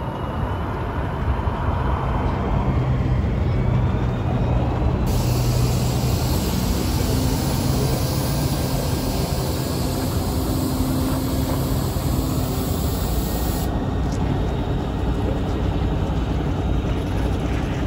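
Diesel engine of a semi tractor running steadily at low speed as it pulls a refrigerated trailer away, with a high hiss that comes in about five seconds in and cuts off sharply near fourteen seconds.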